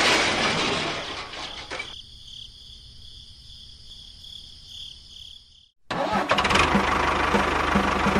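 A loud noisy sound fades away over the first two seconds. After a brief cut, an engine starts running about six seconds in, steady with a regular low knock.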